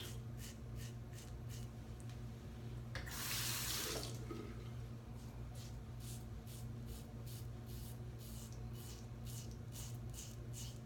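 Tap water running for about a second, about three seconds in. Around it comes a quick series of short, high scraping strokes, about three a second, typical of a double-edge safety razor (RazoRock SLOC) cutting stubble. A steady low hum sits underneath.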